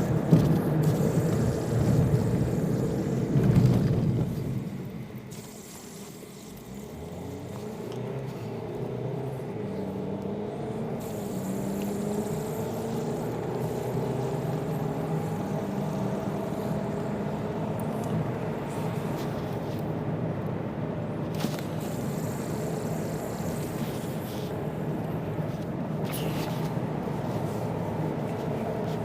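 Steady vehicle engine and road hum that dips about five seconds in, then slowly builds back up.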